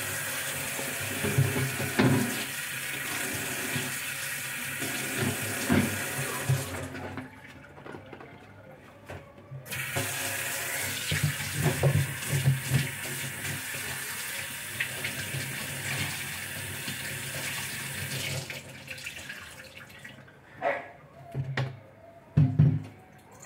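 Kitchen tap running onto a glass refrigerator shelf as it is rinsed in the sink, a steady splashing hiss. The flow breaks off for a couple of seconds, starts again, and stops a few seconds before the end, followed by a few short knocks.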